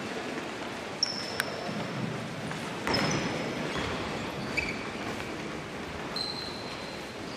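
Hall ambience of a large crowd milling about on a sports court, with a murmur of many people. A few sharp knocks, the loudest about three seconds in, and several short high squeaks of shoes on the hardwood court floor are heard.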